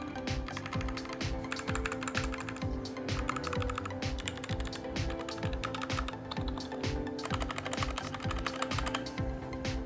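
Clicky blue-switch keys of a Portronics Hydra 10 mechanical keyboard being pressed in quick succession, over background music with a steady beat.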